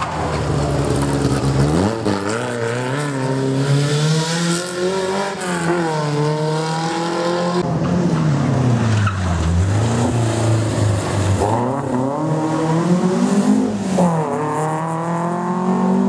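Rally car engine revving hard, its pitch climbing in stages and dropping sharply at gear changes. Tyre noise underneath as the car slides through a cone chicane on tarmac.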